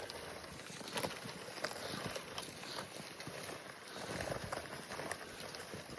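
Irregular footsteps and rustling as a buck is dragged out over the ground.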